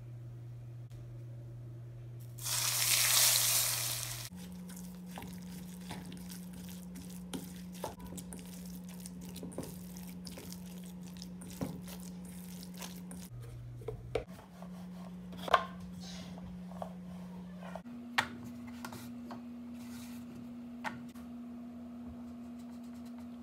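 Minced chicken filling being worked by hand in a stainless-steel bowl after a spoonful of paste is added: scattered soft clicks and taps against the bowl, over a steady low hum whose pitch shifts several times. About two and a half seconds in, a loud rushing hiss lasts nearly two seconds.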